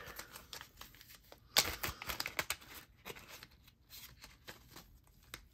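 Rustling and small clicks of a plastic packet of microfiber swabs being handled and a swab drawn out, with a sharper crackle about one and a half seconds in.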